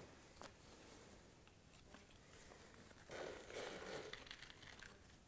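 Faint rustling and crinkling handling noise with a few small clicks, and a louder rustle about three seconds in.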